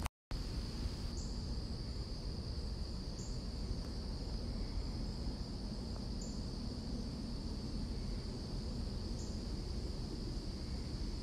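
Steady insect chorus of crickets, one continuous high trill, over a low rumble. A short, higher chirp repeats every two to three seconds, and the sound drops out for a moment at the very start.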